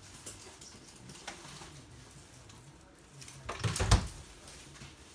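Two toy poodles at play: light clicks and scuffles, then a louder thump with a rustle about four seconds in.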